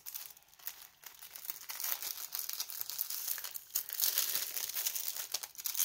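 Clear plastic packaging crinkling and rustling in the hands as a diamond painting kit is unwrapped, the crackling growing busier after about a second.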